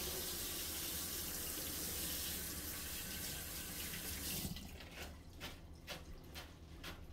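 Kitchen faucet running as fresh cilantro is rinsed under it, then shut off about four and a half seconds in, followed by a few light clicks.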